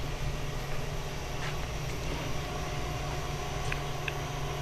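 Steady low machine hum with a few faint ticks; a faint, thin steady whine comes in about halfway through.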